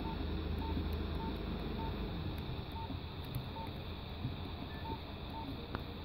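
Nokia 1600 keypad tones: about eight short, identical beeps at uneven gaps of half a second to a second as the keys are pressed to scroll through the phone's menus, over a steady low hum.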